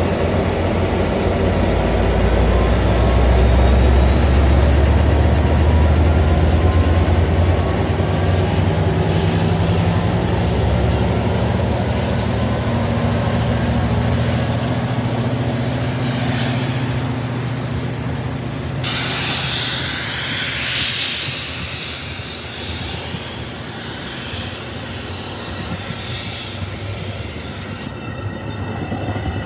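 Metra commuter train passing close by: a diesel locomotive's low engine rumble, loud at first and then fading, under the steady noise of the bilevel cars' wheels on the rails. A thin high whine rises steadily in pitch over the first dozen seconds, and a loud hiss takes over for several seconds in the second half.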